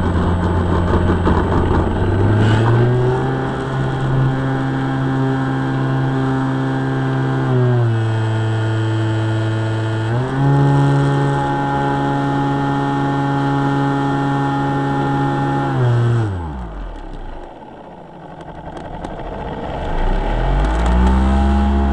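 Electric motor and propeller of a HobbyKing MX2 foam RC plane, heard from inside the fuselage, droning at a steady pitch that steps up and down as the throttle changes. About 16 seconds in the motor cuts off and only wind rush is left while the plane glides, then the throttle comes back near the end with a rising and falling drone.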